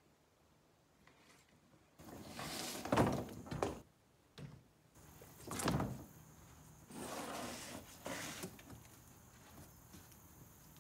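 A thin, flexible wood panel being handled and laid down on a plywood sheet across sawhorses: scraping and sliding of wood on wood with a few thuds, the loudest about three and six seconds in.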